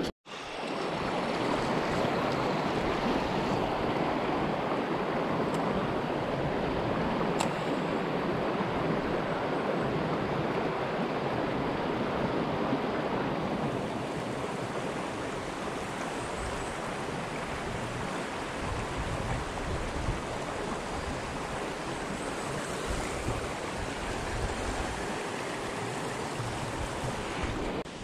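Mountain stream water rushing steadily over a shallow rocky riffle, a continuous even wash of flowing water.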